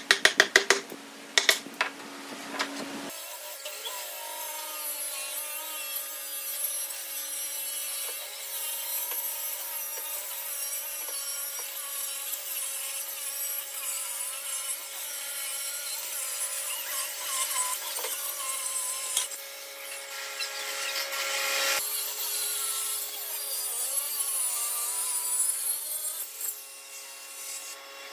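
A few sharp knocks in the first seconds, then a corded circular saw runs steadily as it rips the bark edge off a rough wooden slab.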